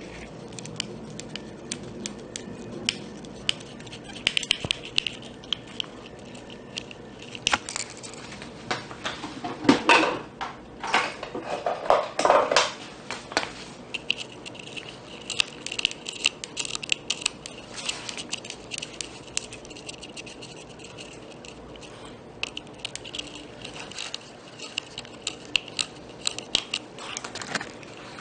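Small plastic and metal parts of an RC truck being handled and fitted by hand with a tool: irregular light clicks, taps and rattles, with a louder burst of clatter about ten to thirteen seconds in.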